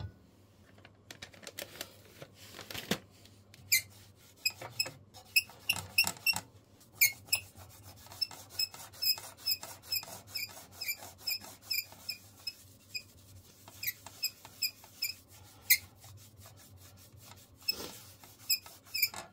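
Wet wipe squeaking on the glass window of a Zvezda wood stove's door as it is rubbed hard back and forth, a quick run of short squeaks, several a second, with softer rubbing in the first few seconds. The glass is coated with soot from burning.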